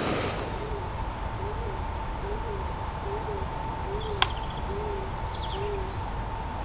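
A bird repeating a low, soft hooting coo, seven even notes a little under a second apart, with faint small-bird chirps over it. A single sharp click about four seconds in.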